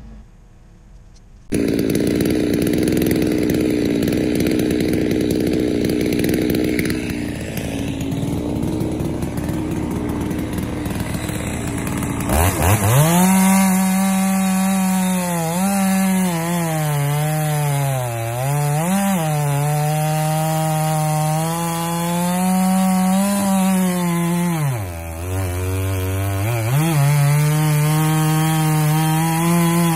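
Gas chainsaw running hard while bucking a large log into firewood rounds. It starts abruptly a second and a half in, and its engine pitch drops briefly twice in the second half as the saw works through the cut.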